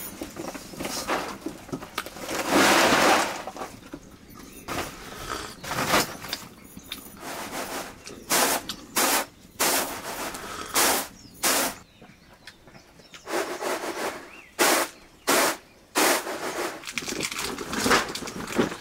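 A series of sharp knocks and cracks at uneven intervals, thickest in the second half, with a longer rustling noise a couple of seconds in.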